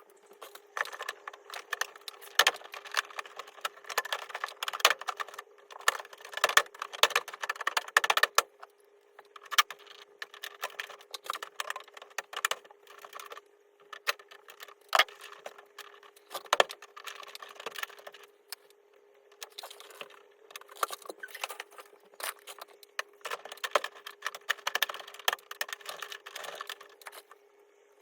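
Irregular clicks, taps and rattles of hard parts being handled, over a faint steady hum.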